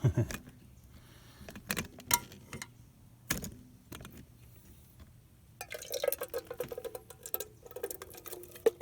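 Metal mess kit clinking and knocking as it is handled, then a few seconds of dense rattling and rustling from about halfway in as food is tipped into the pot.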